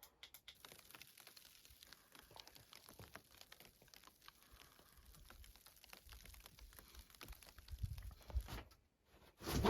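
Rustling and crinkling with many small clicks, as of gear being handled, with a few low thuds near the end and a louder sharp knock just before it stops.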